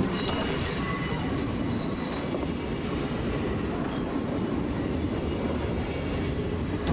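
Diesel locomotive running slowly past over the points, a steady low rumble of engine and wheels on rail, with a wheel click over a rail joint at the start.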